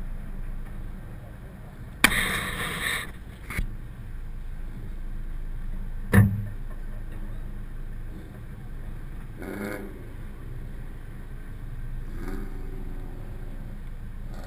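Mazdaspeed6's turbocharged 2.3-litre four-cylinder idling steadily. About two seconds in there is a sharp noisy rustle lasting about a second, and about six seconds in a loud single thump.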